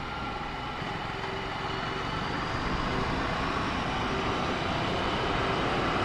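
Ducati Scrambler Sixty2's 399 cc air-cooled L-twin running while the motorcycle is ridden, mixed with wind rushing over the rider's microphone. Both grow slowly louder.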